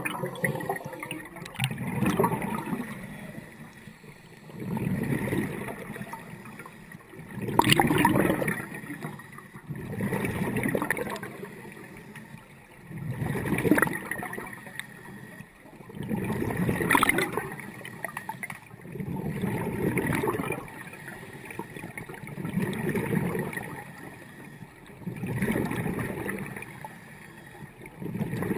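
Scuba diver breathing underwater through a regulator. Exhaled bubbles gurgle in loud bursts, one breath about every three seconds, with quieter stretches between.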